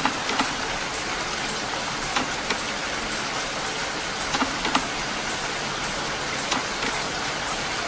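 Steady rain: a constant hiss with scattered sharper drop taps.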